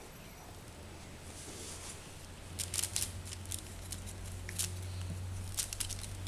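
Kittens shifting in a wicker basket: scattered light clicks and scratches of claws on wicker and floor, in small clusters a few seconds apart, over a low steady hum.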